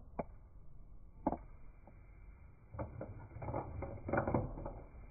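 A Pomeranian eating dry kibble from a clear bowl: a few separate clicks of kibble knocking on the bowl, then a dense run of clicking and rattling from about three seconds in as it takes mouthfuls.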